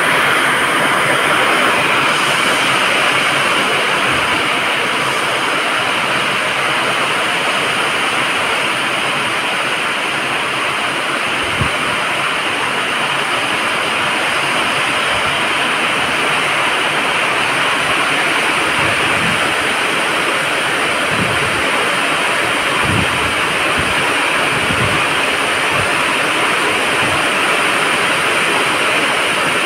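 Steady hiss of heavy rain falling, with a few soft low thuds about halfway through and again toward the end.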